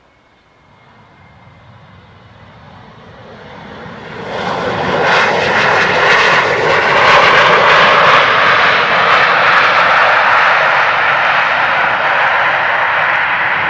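Dassault Falcon 2000 business jet's two turbofans on the landing roll, going into reverse thrust: the jet noise builds over the first few seconds, jumps much louder about four seconds in and stays loud and steady, with some crackle at its peak.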